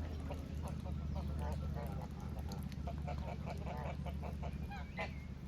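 A group of geese calling: many short, rapid honks and gabbles overlapping, over a steady low rumble.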